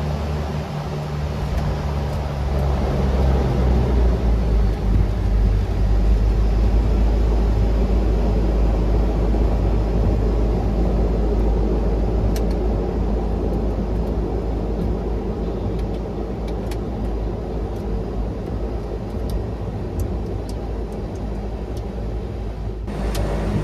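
Cabin noise of a Widerøe Dash 8-100 twin turboprop: a heavy, steady engine and propeller rumble that swells over the first few seconds and then holds. A few faint clicks come in the middle.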